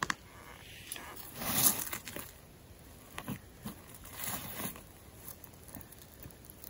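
Rustling and crunching of people moving on a forest floor, with small scattered clicks and two louder rushing swells about a second and a half and four and a half seconds in.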